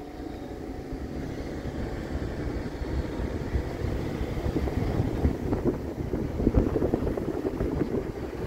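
Road noise and low rumble of a moving vehicle, with wind buffeting the microphone and growing a little louder.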